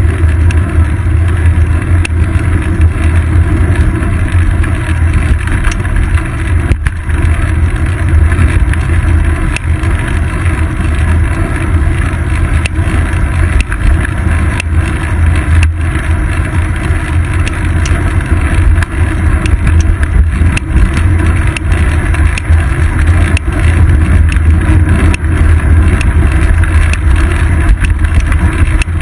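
Steady low wind buffeting and road vibration picked up by a seat-post-mounted GoPro Hero 2 on a moving bicycle, with a few small knocks from bumps in the pavement.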